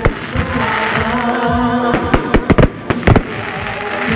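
Fireworks display: shells bursting and crackling in quick clusters of bangs, with music playing underneath.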